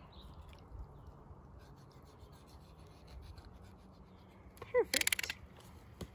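Faint rubbing and rustling as gloved hands pull open a cut-open Chinook salmon's belly on paper towels. About five seconds in comes a short, sharp rasping burst.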